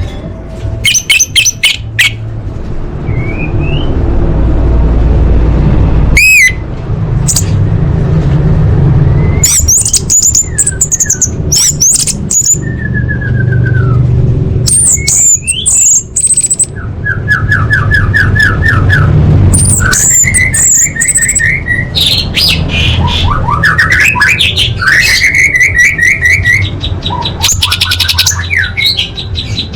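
Orange-headed thrush singing a varied song of fast trills, whistled glides and short repeated note strings, over a steady low rumble.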